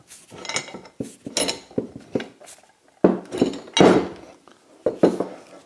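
Metal parts of a quick-release woodworking vice clinking and clanking, a dozen or so sharp knocks with ringing, as the front casting is slid off its steel guide rods and lead screw and the quick-release mechanism is lifted out.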